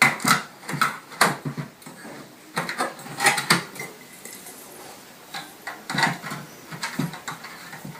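Fluorescent tubes being handled against the stainless-steel housing of a wall-mounted insect trap as they are taken out and fitted into their holders: a series of clinks and knocks in clusters, in the first second and a half, around three seconds in, and again from about six seconds.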